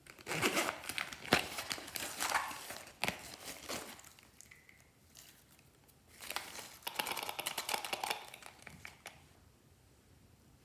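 Plastic packaging crinkling as it is handled, in two bursts of a few seconds each with a pause between.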